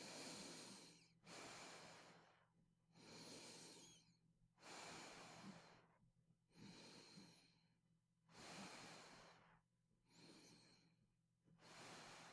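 Faint, airy breathing of a sleeper wearing an anti-snoring device, with little of a snoring rattle: about eight breath sounds, each around a second long, in an even rhythm. A faint steady hum sits underneath.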